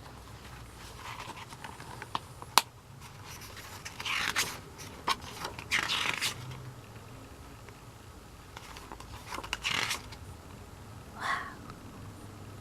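A CD album's paper packaging being handled: several short bursts of rustling and crinkling, with one sharp click a couple of seconds in.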